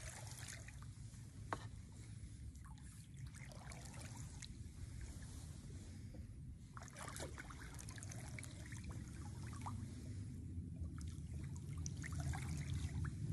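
Wooden paddle stroking a canoe through still swamp water, with water trickling and dripping off the blade on each stroke, the strokes a few seconds apart. A single sharp knock about a second and a half in.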